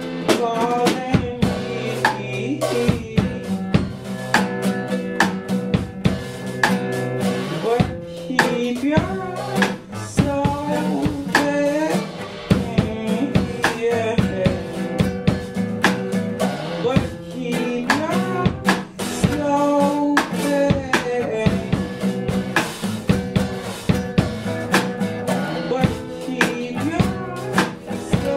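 Live band playing: a nylon-string classical guitar strummed and picked over a drum kit keeping a beat with bass drum, snare and rimshots.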